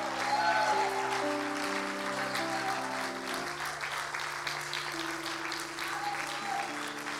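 A keyboard plays soft sustained chords that shift every second or so, while the congregation applauds with scattered clapping.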